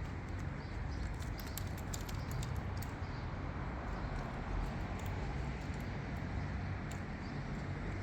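Outdoor town ambience: a steady low rumble and hiss with scattered light clicks.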